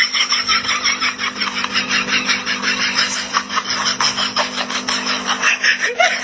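Rapid, even rasping or scratching strokes, about eight a second, over a steady low hum.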